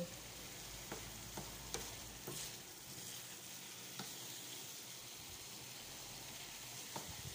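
Fried chicken pieces in thick soy-chili sauce sizzling in a nonstick frying pan: a steady hiss with a few faint clicks scattered through it.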